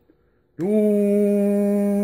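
A man's voice holding one long, steady hummed or sung tone into the CB radio microphone, starting about half a second in, to modulate the transmitter through the linear amplifier for a peak-power reading.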